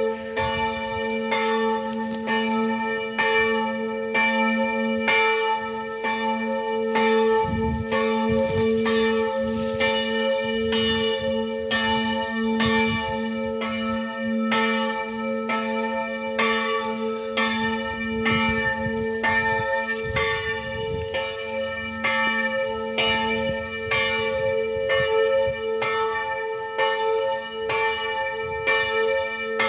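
Church bells pealing, with struck bell tones recurring about once a second and each ringing on into the next.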